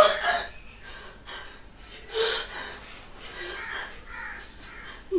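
A woman's short cry at the start, then a series of breathy gasps and hard breathing: an actress playing a startled waking in fright.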